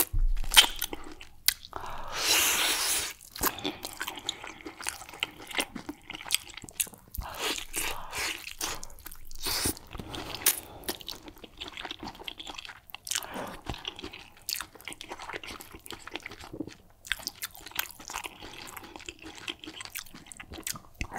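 Close-miked eating sounds: biting into and chewing a large piece of soup-coated meat, with a louder bite and tear about two seconds in, then steady chewing full of small wet clicks and lip smacks.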